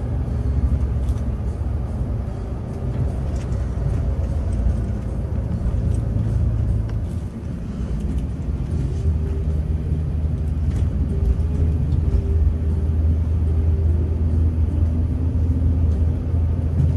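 Scania K360 coach's 13-litre DC13 turbocharged inline-six diesel running under way, heard from inside the driver's cab as a steady low drone mixed with road noise. It dips briefly about seven seconds in, then settles into a steadier hum at one pitch.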